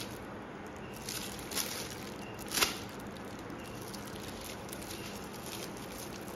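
Thin plastic bag crinkling as it is handled, in a few short crackles, the loudest about two and a half seconds in.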